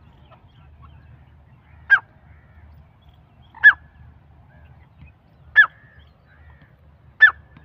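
Irani teetar partridges calling: four short, sharp calls, each a quick downward-sliding note, spaced about two seconds apart.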